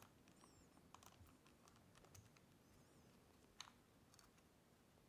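Near silence with a few faint, short clicks, the clearest about three and a half seconds in: small parts being handled as a screwdriver works and the wooden grip panels come off a 1911 pistol frame.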